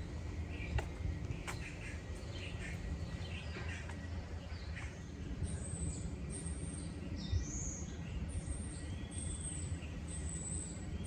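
Small birds chirping, with short high notes repeating through the second half, over a steady low outdoor rumble. A couple of sharp clicks about a second in.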